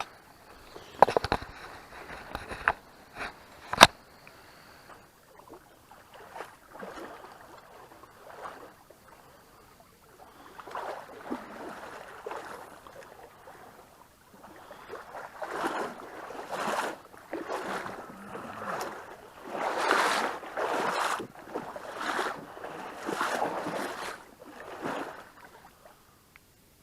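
Creek water splashing and sloshing in a series of irregular surges, with a few sharp clicks in the first few seconds.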